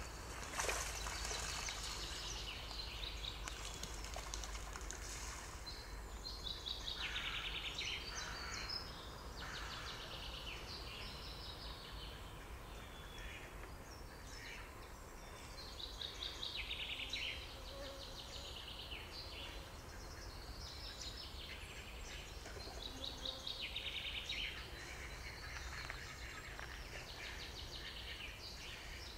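Songbirds singing in the spring morning chorus: repeated short trilled phrases, several of them falling in pitch, over a steady low rumble.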